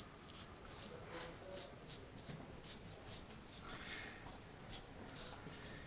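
Faint rustling and handling noises: a string of short, scratchy rustles at an uneven pace.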